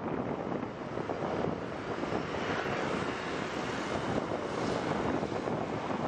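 Steady rush of wind buffeting the microphone while riding along a road, with motor-vehicle engine noise running underneath.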